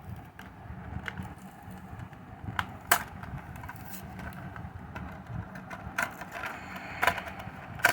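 Plastic blister pack and card backing of a die-cast toy car being pulled open by hand: irregular crackling and several sharp clicks and snaps, the loudest about three seconds in, about seven seconds in and at the very end.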